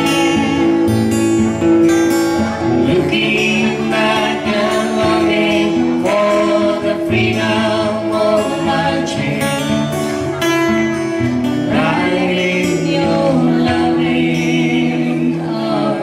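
Singing with acoustic guitar accompaniment, the voices holding long notes over strummed chords.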